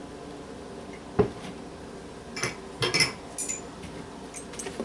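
Spoon clinking against a bowl while ingredients are added to bread dough: a single clink about a second in, a quick run of clinks in the middle and a few lighter taps near the end.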